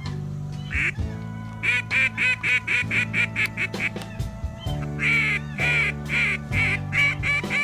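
Geese honking in a rapid run of short calls, about three to four a second, with a brief pause a little past the middle, over background music with sustained low chords.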